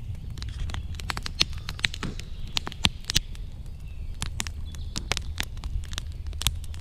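Wood campfire of split logs and dry twigs crackling, with many irregular sharp snaps and pops over a low steady rumble.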